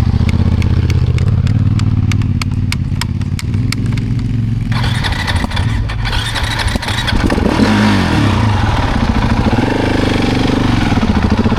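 KTM 690 single-cylinder engine running roughly and unable to settle to idle after a stall, with regular sharp clicks for the first few seconds, then louder and rougher with its speed rising and falling from about five seconds in. The owner puts this down to almost no intake valve clearance.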